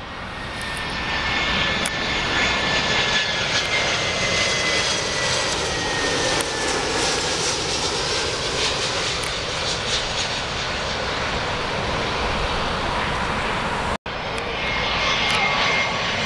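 Airbus A320-family jet airliners on final approach, passing low overhead: a steady jet roar with a faint high whine that slowly falls in pitch. The sound cuts out for an instant near the end, then another approaching airliner's roar and whine carry on.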